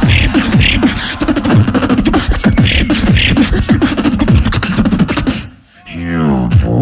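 A beatboxer performing a fast, bass-heavy beatbox pattern with the mouth: deep kick drums that drop in pitch, quick clicking hi-hats and hissing snares. The beat breaks off about five and a half seconds in, and a pitched vocal tone slides downward near the end.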